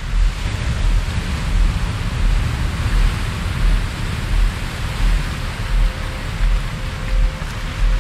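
Added relaxation soundtrack: a steady wash of hiss-like noise that swells and eases slowly, over a deep low rumble that pulses unevenly.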